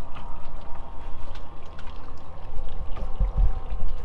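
Water trickling and splashing beside a small boat, over a low rumble and a faint steady hum. The rumble swells about three seconds in.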